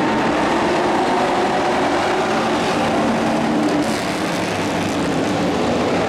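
Engines of a pack of dirt-track race trucks racing past together, several engines overlapping at different pitches. The sound eases off a little about four seconds in as the pack moves on into the turn.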